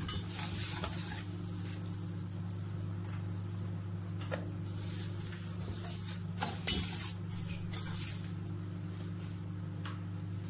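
A spoon stirring and scraping sugar and melted butter in a stainless steel saucepan, with a faint sizzle that fades about a second in and scattered clicks of the spoon against the pan. A steady low hum runs underneath.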